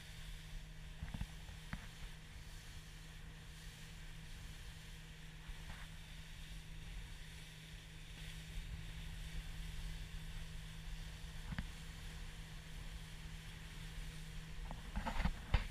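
A motorboat's engine running steadily at cruising speed: a constant drone over a low rumble, with the rush of the wake and hull on the water. A few light knocks, with a louder cluster of them near the end.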